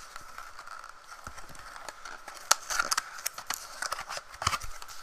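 Cardboard box being opened by hand: flaps rubbing and scraping, with scattered sharp clicks and taps, the sharpest about two and a half seconds in. A faint steady whine runs underneath.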